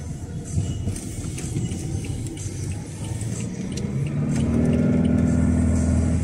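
Motor vehicle driving, steady road and engine noise; about four seconds in a deeper engine hum builds and grows louder.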